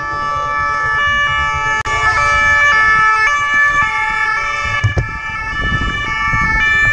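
Police motorcycle sirens sounding, several pitches together that step back and forth, over a steady low engine and wind rumble.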